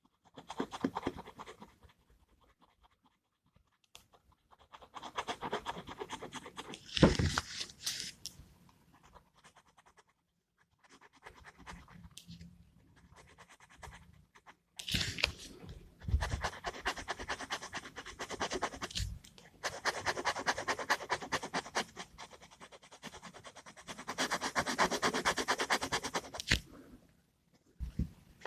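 Gel pen scratching on paper in fast back-and-forth strokes, coming in runs of a few seconds with short pauses between them, as when colouring in a drawing.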